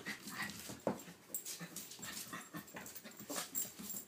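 Small dog play-fighting with a cat on a hardwood floor: irregular scuffling and clicks of claws and paws on the wood, with brief sounds from the dog.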